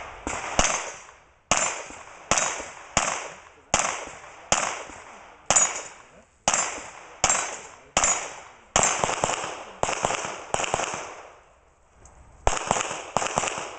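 Handgun shots fired in a string, one or two at a time, about a shot every half to one second, each followed by a short echo. After a pause of about a second and a half near the end, a quicker burst of shots follows.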